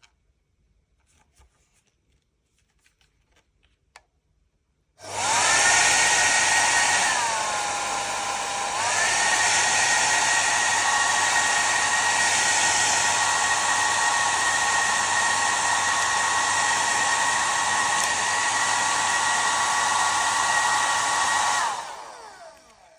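SALONIA Smooth Shine hair dryer switched on about five seconds in, blowing steadily with a high motor whine. For a couple of seconds the whine drops lower and quieter, then it comes back up and runs until it is switched off near the end, winding down.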